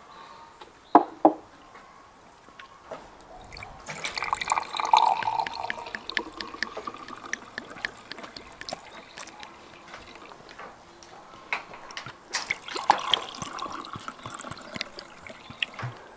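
Red wine poured from a clay jug into drinking glasses, two separate pours each lasting a few seconds, the splashing rising as each glass fills. Two sharp knocks about a second in.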